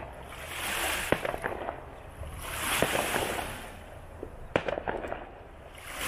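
Fireworks going off: sharp bangs and crackles, a few about a second in and a tight cluster around four and a half to five seconds in. Beneath them, a wash of noise swells and fades every couple of seconds, like waves washing onto the lakeshore.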